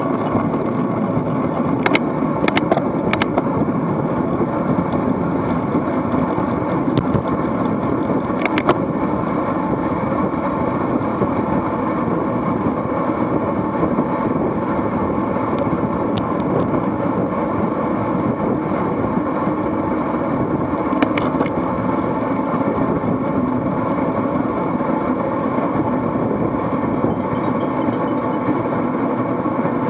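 Steady wind rush and tyre and road noise from a road bike riding in a racing pack at speed, with wind buffeting the camera microphone. A few sharp clicks break through, three close together in the first few seconds and a couple more later.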